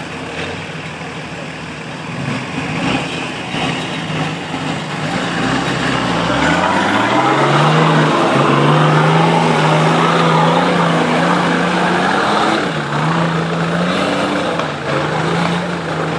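Off-road 4x4 engine revving up about six seconds in, then held at steady high revs with small dips as it drives past close by.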